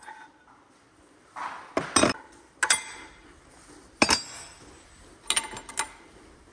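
Sharp metallic clinks and clanks of hand tools knocking against metal engine parts. There are several separate strikes, each with a short ring, including a quick pair about two seconds in and a quick cluster past the five-second mark.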